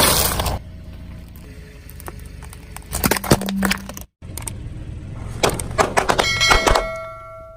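Objects cracking and crunching as they are crushed under a car tyre, in two bursts of sharp cracks. The second, longer burst ends in a brief ringing tone.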